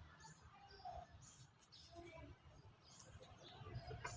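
Near silence: faint background noise with a low hum and a few faint, short high sounds.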